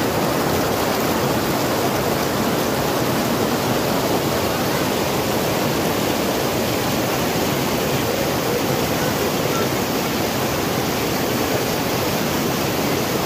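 Fast mountain stream rushing over and around boulders: a steady, loud rush of white water.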